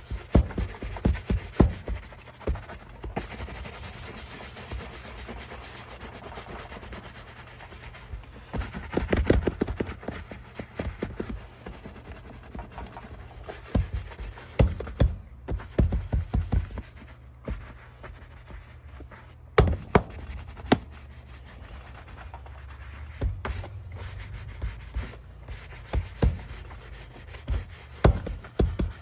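Shoe brush scrubbing over a leather work boot in quick back-and-forth strokes, coming in bursts with short pauses between, as mink oil is worked into the leather.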